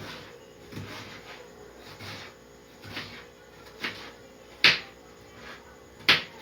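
Kitchen knife cutting potatoes on a cutting board: irregular strokes about once a second, with two louder knocks near the end.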